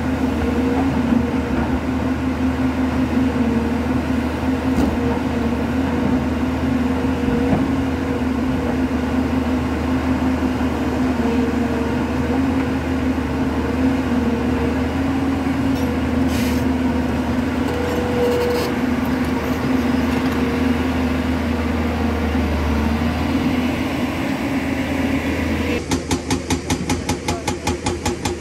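JCB tracked excavator's diesel engine running steadily at a constant pitch while the bucket digs into a rocky bank, with a few short knocks. About two seconds before the end the sound turns into a fast, even pulsing of roughly five beats a second.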